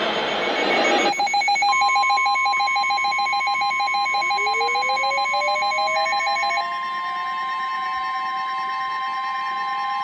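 Emergency alert tones from broadcast receivers, overlapping. About a second of radio static cuts off, then a rapidly pulsing tone begins. Soon after, a steady single-pitch alarm tone like the NOAA Weather Radio warning alarm comes in, joined by a tone that glides upward and then holds.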